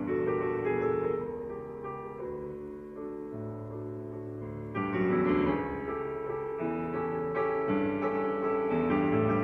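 Solo piano playing slow, sustained chords, growing louder about five seconds in.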